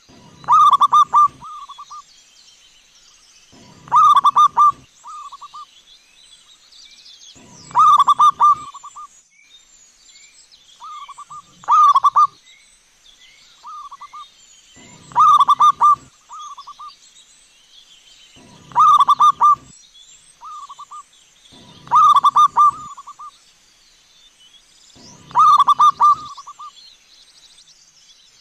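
Zebra dove (perkutut) cooing: a loud rolling phrase of quick coos, repeated about eight times at roughly three-and-a-half-second intervals, each with a shorter, fainter coo beside it. Small birds chirp faintly in the background.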